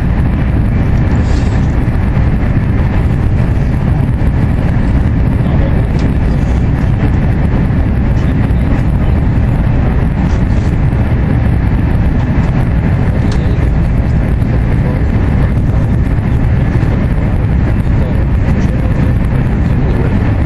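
Steady, loud running noise of an AVE high-speed train at speed, heard from inside the passenger car: a low rumble of wheels on rail and rushing air.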